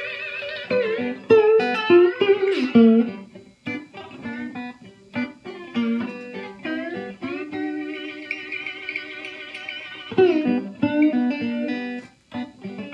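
Three-string cigar box guitar played through a small Fender amp: a blues lick of quick picked notes, several with a wavering pitch, and one long wavering note held for a couple of seconds in the middle.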